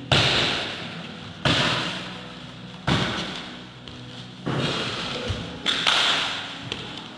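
A series of five heavy thuds, each with a long echoing tail, about one every second and a half. They come from body impacts as two karateka strike, grapple and throw one another down onto floor mats.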